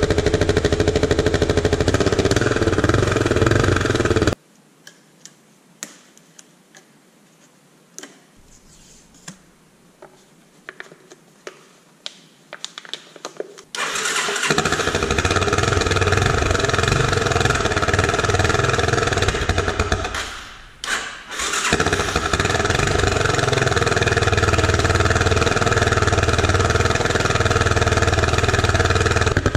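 Yamaha Serow single-cylinder four-stroke motorcycle engine running through a homemade tin-can extension taped onto its muffler. The sound cuts off sharply about four seconds in, leaving a few faint clicks. Some ten seconds later the engine is heard again and runs on, dipping briefly around twenty seconds in.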